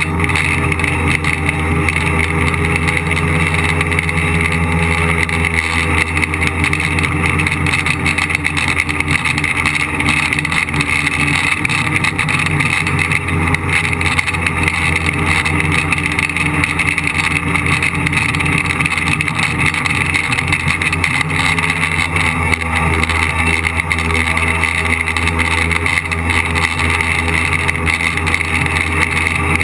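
A tricopter's electric motors and propellers buzzing loudly and steadily, heard from the craft's own onboard camera, with the pitch wavering slightly as the throttle changes.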